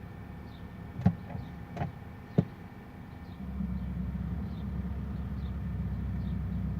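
Volkswagen Passat CC 2.0 TSI engine running, with three sharp knocks about a second, two seconds and two and a half seconds in; a little later the engine runs louder and lower, steady. The knocking is the noise the owner hears as the clutch is released at the biting point, which a new left engine mount has not cured.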